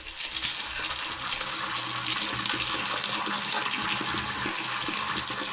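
AI-generated sound effect (ElevenLabs) of water pouring from a faucet onto a metal pan: a steady gush of running water, starting suddenly and holding even throughout.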